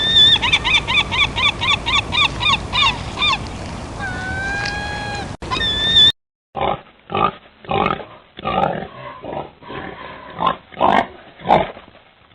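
Animal calls: a quick run of repeated high, squeaky notes, then a few longer whistled notes; after a short break, a series of rough grunts.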